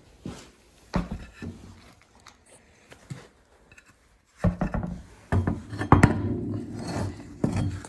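Tools and a freshly inflated golf-cart wheel being handled: a few scattered knocks and clinks, then a busier stretch of rubbing and clattering with a loud knock about six seconds in.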